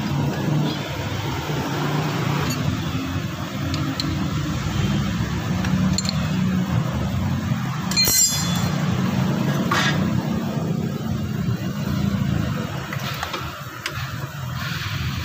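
A steady low mechanical drone, with scattered small metallic clicks and one bright ringing clink of metal about eight seconds in as a disc brake caliper is handled and fitted back over its rotor.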